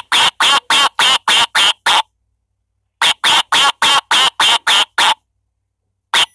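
A children's sound book's built-in speaker playing a recorded animal call: a rapid run of short calls, about four a second, heard three times over in runs of about two seconds with a second's pause between.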